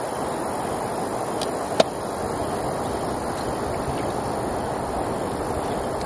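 Knife blade working at the shell of a freshwater river mussel, with one sharp click of metal on shell a little under two seconds in, over a steady outdoor rushing noise.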